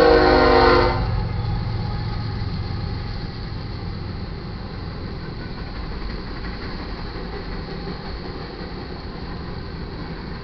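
Horn of the lead GE ES44C4 freight locomotive sounding and cutting off about a second in. Then the steady low rumble of a long freight train's cars rolling past, slowly fading.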